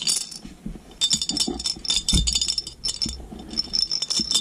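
Small rocks rattling and clinking inside a container being shaken hard, in rapid repeated bursts that grow busier from about a second in.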